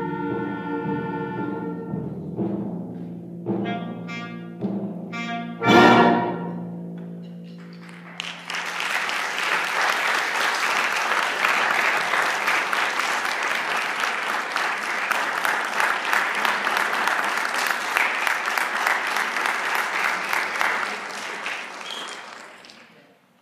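A high school concert band holds its closing chords over timpani, plays a few short accented notes, and ends on one loud final hit about six seconds in that rings off. Audience applause follows for about fourteen seconds and fades near the end.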